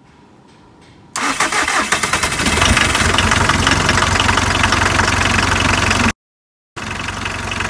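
VW T4 van's turbo-diesel engine, which has a failed head gasket, starting about a second in and then running steadily. The sound cuts out for a moment near the end, then carries on.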